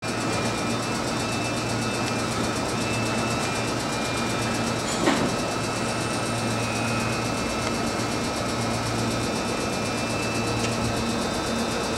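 Meitetsu electric train standing at a platform, its onboard equipment giving off a steady hum with a few faint steady tones. A single short click sounds about five seconds in.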